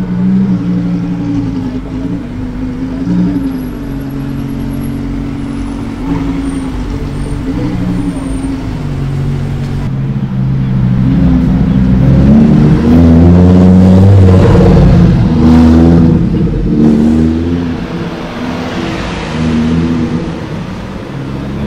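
Lamborghini supercar engines running and revving as the cars drive past one after another, their pitch rising and falling. The loudest stretch comes a little past halfway, as a car passes close.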